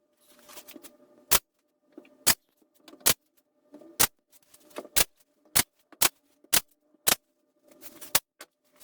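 Ten sharp, separate cracks at uneven gaps of about half a second to a second.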